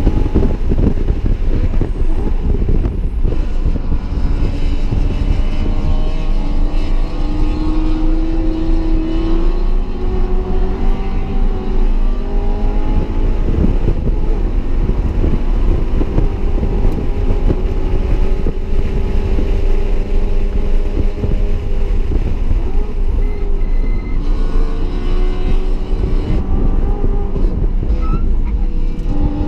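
BMW E92 M3's 4.0-litre V8 with an aftermarket X-pipe exhaust running hard at track speed, heard from inside the cabin: its pitch climbs under acceleration and drops off several times as it shifts and slows, over steady tyre and wind noise.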